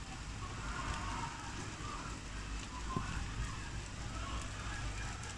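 Steady rain falling, an even hiss, with a single sharp tap about three seconds in.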